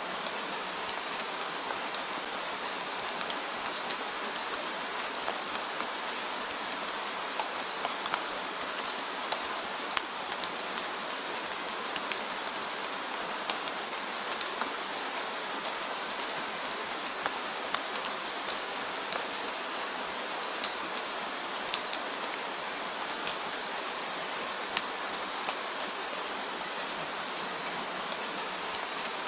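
Steady rain falling on a surface, an even hiss with many individual drops ticking sharply throughout.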